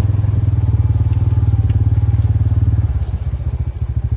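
Engine of a farm vehicle running with a steady, fast low throb; the note eases off slightly about three seconds in.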